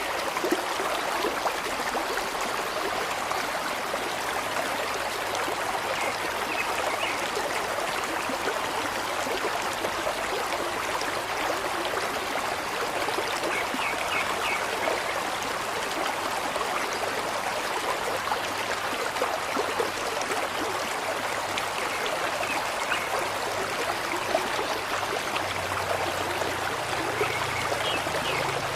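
Steady running water, like a flowing stream, at an even level, with a few faint high chirps now and then.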